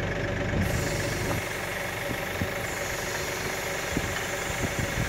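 Kioti tractor's diesel engine idling steadily while it runs the hydraulic tree spade, with a few faint knocks in the second half.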